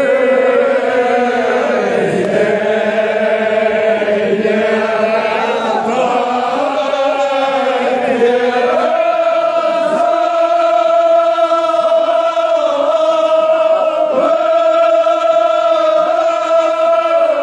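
A crowd of men chanting a Kashmiri noha, a mourning lament, loudly in unison. The voices move in pitch at first, then settle about halfway through into long held notes broken by short pauses.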